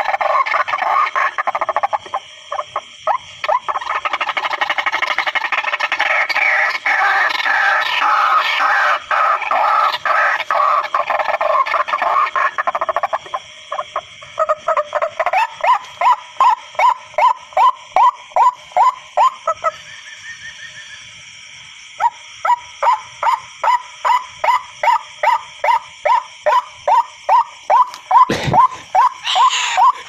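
White-breasted waterhen (teruak) calls used as a lure. It opens with a dense, loud jumble of calls, then settles into a steady run of repeated rising 'kru-ak' notes, about two a second, with a short break partway.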